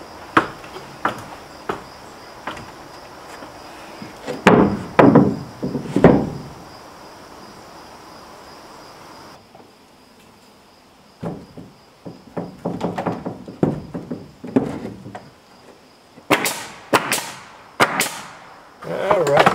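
Wooden soffit boards knocked and tapped into place overhead, then a quick run of sharp shots from a pneumatic nail gun near the end as the boards are nailed up.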